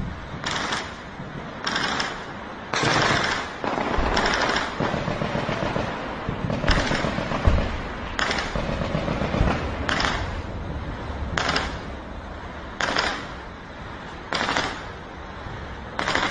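Military gunfire from a border exchange of fire: about eleven short bursts, one every second or two, with a longer run of shots a few seconds in, each tailing off over a low background rumble.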